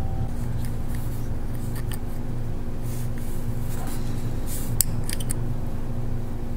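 A few small metallic clicks and scrapes about four and a half to five and a half seconds in, as a metal pick works an old O-ring off a threaded valve cam plug, over a steady low hum.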